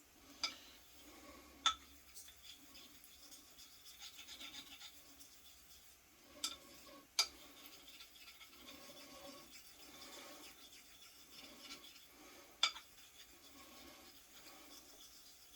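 A 6/8 quarter hollow straight razor stroked back and forth over a wet sharpening stone with slurry: a faint, rhythmic rubbing, broken by a few sharp clicks.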